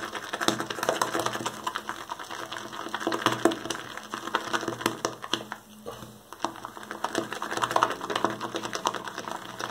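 Shaving brush whipping lather in a handmade ceramic shaving bowl: a fast, continuous wet crackling and squishing of foam as the bristles swirl against the bowl, with a short lull about six seconds in.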